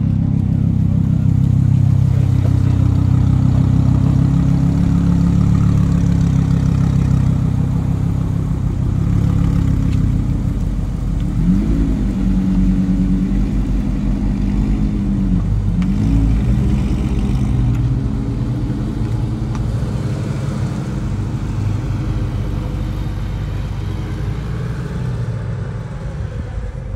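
Audi R8 sports car engine running close by with a deep steady note as the car creeps past, then revving up and down twice around the middle as it pulls out and accelerates away. The sound slowly fades toward the end.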